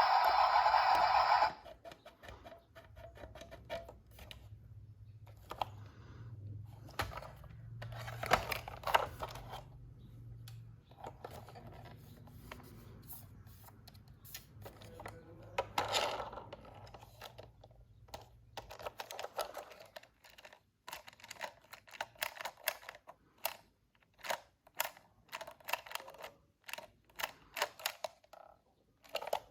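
A loud steady sound cuts off abruptly in the first two seconds, giving way to hands handling plastic toys and packaging: scattered light clicks and rustles, becoming a quick run of sharp plastic clicks in the last third.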